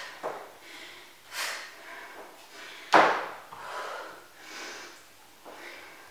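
A person's feet landing and pushing off on a wooden floor during a jumping lunge-and-kick exercise: several thuds at an uneven pace, the loudest about three seconds in. Between the landings come short, breathy exhalations from the effort.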